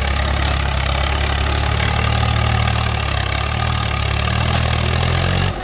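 Diesel engine of a heavy farm or earth-moving machine running steadily at a low idle, over a steady hiss. The sound cuts off abruptly near the end.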